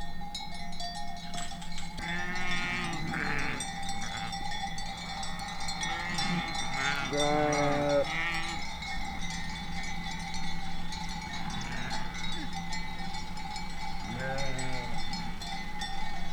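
Sheep bells ringing steadily across a grazing flock, while sheep bleat in wavering calls: about two seconds in, a longer run around seven seconds in, and again near the end.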